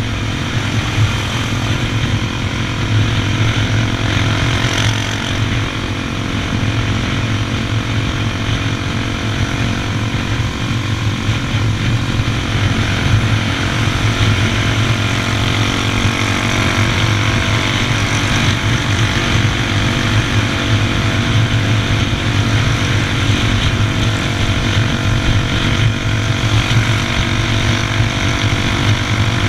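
Honda XR 250 Tornado's single-cylinder four-stroke engine running at a steady, near-constant pitch while the motorcycle rides along.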